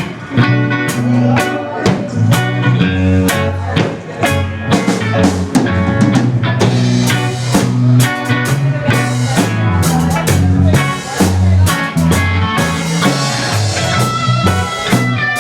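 Instrumental blues-rock played by a band: electric guitar over a bass line and a drum kit keeping a steady beat.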